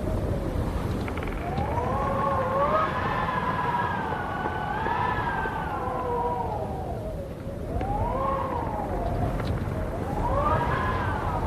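Wind howling, its pitch rising and falling in a few long swells over a steady low rumble of gusts.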